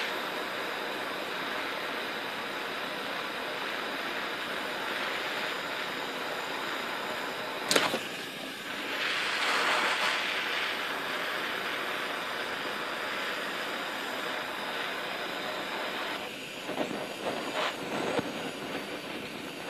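Handheld gas bottle torch burning with a steady hiss. A sharp click about eight seconds in is followed by a louder surge of flame for a couple of seconds. Near the end the flame sputters unevenly as liquid fuel reaches the nozzle, because the bottle is held too close to horizontal.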